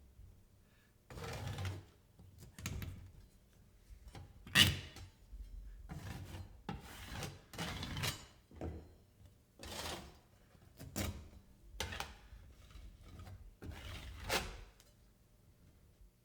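Drywall tape being pulled off its roll, torn and pressed onto the edges of a wall patch: a series of about a dozen irregular rasping, rubbing strokes.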